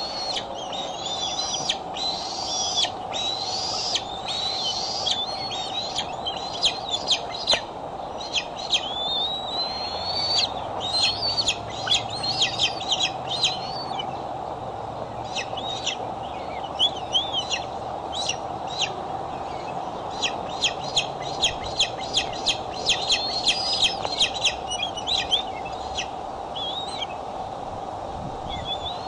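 Bald eagles calling at the nest: high-pitched whistles that rise and fall, then rapid runs of sharp chirps. A steady background hum lies underneath.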